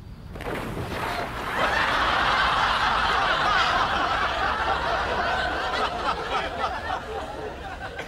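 Studio audience laughing, many people at once, the laughter swelling about a second and a half in and dying away near the end.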